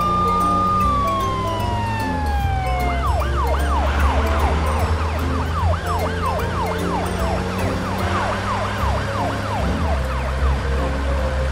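Police car siren: a held wail that glides down over the first three seconds, then switches to a quick repeating yelp, over background music.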